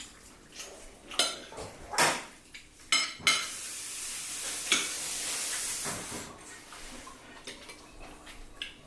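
Plates and cutlery clinking during a meal, several sharp separate clinks, with a steady hiss lasting about three seconds midway.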